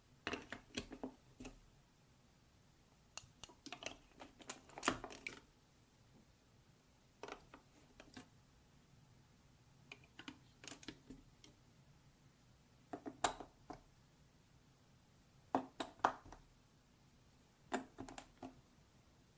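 Faint clusters of light clicks and clatter from hard plastic toy pieces and marbles knocking together, a few clicks at a time with short pauses between.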